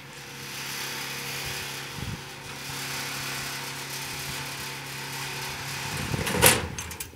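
A motor running with a steady hum, then a loud metal clatter about six and a half seconds in.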